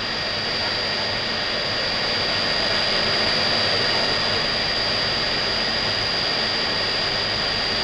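Steady machine-hall noise from the accelerator's radio-frequency power amplifier equipment: an even rushing sound with a high steady whine. It swells slightly over the first few seconds and then holds.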